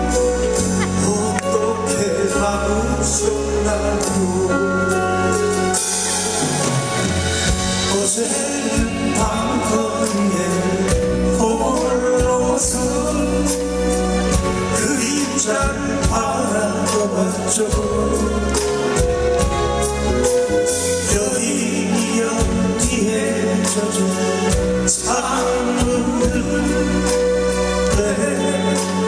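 Live band music: two acoustic guitars, electric guitar and bass playing a slow song, with men singing.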